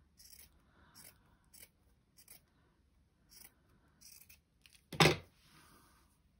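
Scissors snipping fabric in a handful of short, separate cuts as a cotton piece is trimmed. About five seconds in comes a single sharp knock, the loudest sound.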